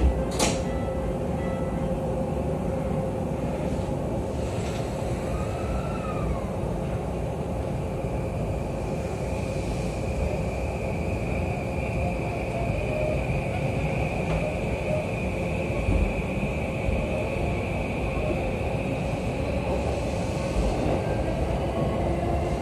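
Interior running sound of a JR East E235-series Yamanote Line car: steady wheel-and-rail rumble with a hum from the electric traction drive, and a higher whine that comes in after several seconds and then holds steady. A brief knock comes right at the start, just after the doors have closed.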